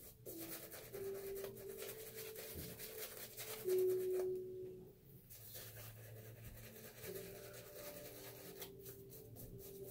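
Shaving brush swishing lather across the face in quick rubbing strokes, under soft background music of long held notes; the loudest note comes about four seconds in.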